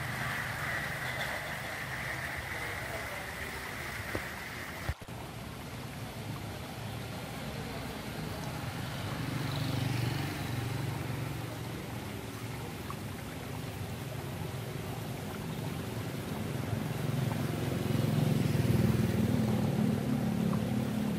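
Street ambience: a steady low rumble of passing traffic that swells louder near the end. A brief sharp click about five seconds in.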